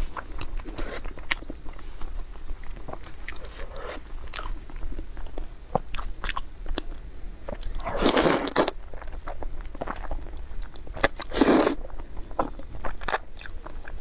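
A person chewing a mouthful of noodles with many small wet clicks, then slurping noodles in two loud drawn-in bursts, about eight and eleven seconds in.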